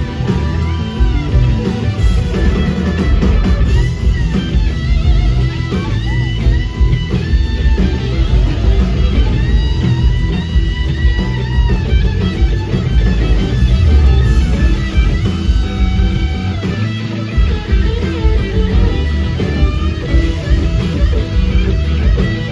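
Live rock band playing: electric guitars with bent, sliding notes over bass guitar and drums.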